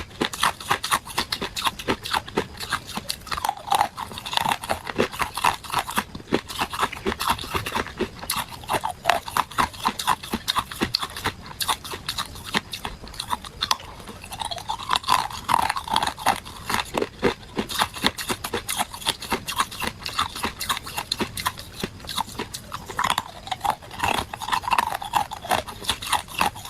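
Hard ice cubes crunched and chewed between the teeth: a rapid run of sharp cracks and crunches, several a second, with no pause.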